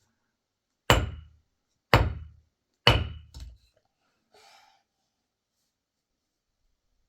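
Three heavy blows about a second apart, each a deep thud with a short ring, then a lighter fourth knock.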